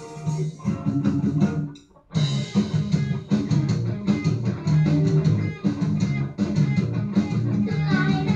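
Amateur rock band playing live, with electric guitars, bass guitar and drum kit, played back through a television's speakers. About two seconds in the band stops together for a split second, then comes back in at full volume.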